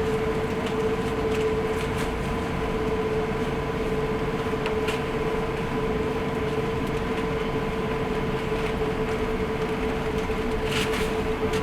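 Steady cabin drone inside an Airbus A380 on the ground, an even rush of air and engine noise with a constant hum, and a couple of faint clicks about halfway and near the end.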